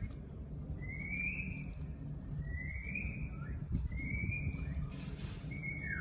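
Young peafowl peeping: three short whistled calls, each rising in pitch, about one every second and a half, over a low background rumble.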